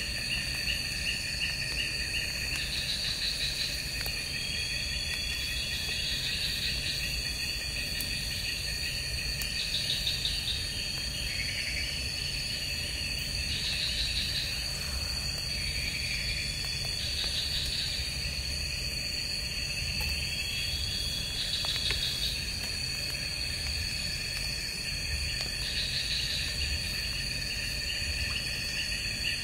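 Night chorus of crickets and other insects. A steady, high, unbroken trill runs over a pulsing chorus, and a short chirping phrase repeats every three to four seconds. A low steady rumble lies beneath.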